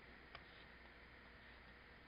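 Near silence: room tone with a steady low hum and hiss, and one faint click about a third of a second in.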